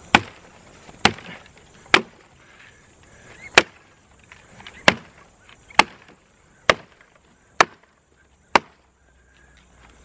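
Zippo 4-in-1 Woodsman hatchet chopping the branches off a fallen tree: nine sharp chops into wood, about one a second.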